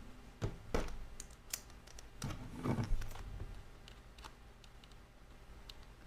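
Small scattered clicks and taps of a precision screwdriver working on an iPhone 8 Plus while its two bottom screws are unscrewed, a handful of sharper taps in the first three seconds and fainter ticks after.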